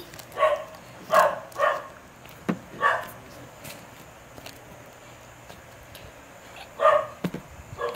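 A dog barking in short barks, four in quick succession over the first three seconds and one more near the end.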